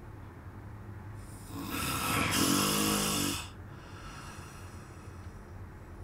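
A sleeping man snoring: one loud snore about two seconds long, starting about a second and a half in, over a steady low hum.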